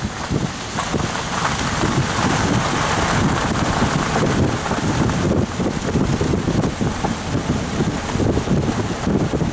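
Wind buffeting the microphone over the steady rumble of a vehicle riding along a gravel road.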